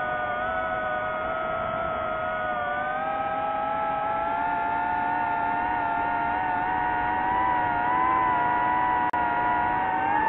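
DJI FPV drone's motors and propellers whining steadily. The pitch climbs slowly, rises quickly near the end, and the sound briefly drops out about nine seconds in.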